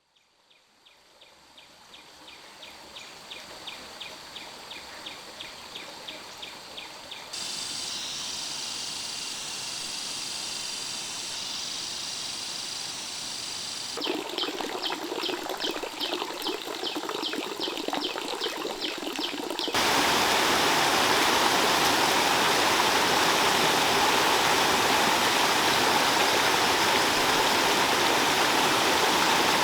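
Outdoor ambience that fades in with a fast repeating high tick and changes abruptly several times. In the last third it gives way to the louder, steady rush of flowing stream water.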